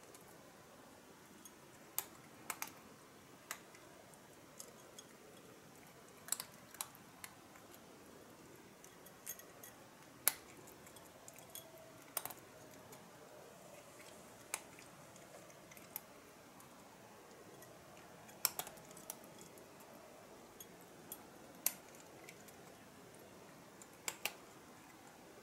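Domestic cat crunching dry kibble from a bowl: sharp, irregular crunches, roughly one a second.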